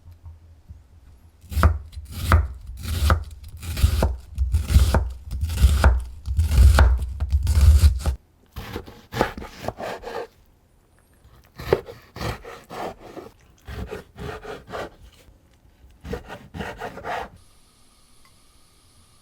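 Kitchen knife chopping food on a cutting board, strokes about every half second with a low thud on the board. About eight seconds in, the cuts carry on lighter, without the thud.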